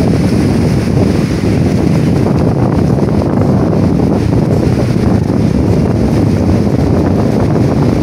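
Wind blowing across the microphone, a loud steady rumble, over waves washing onto a sandy beach.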